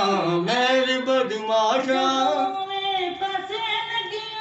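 A voice singing a Punjabi folk song melody in a recording session, holding long notes that bend and slide between pitches.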